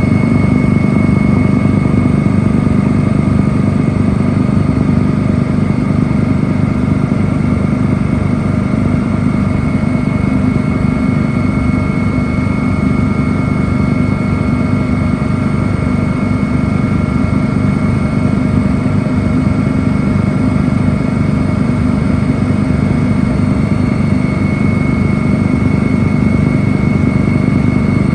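Helicopter engine and rotor heard from on board: a steady, loud drone with a constant high whine over it.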